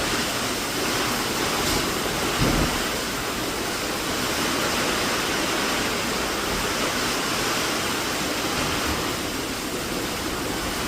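Steady, even rushing of hurricane rain and wind pouring down outside.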